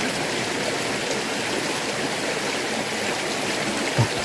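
A creek running steadily, with a single brief low thump near the end.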